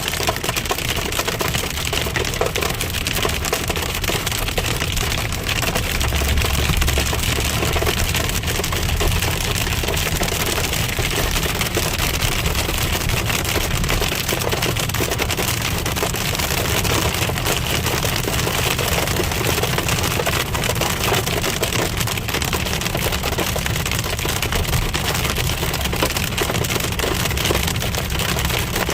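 Hail pelting a moving car, a dense, steady clatter of many small impacts over a low rumble.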